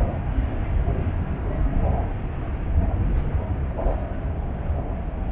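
Steady low rumble of a subway train running, heard from inside the passenger carriage, with a faint click about three seconds in.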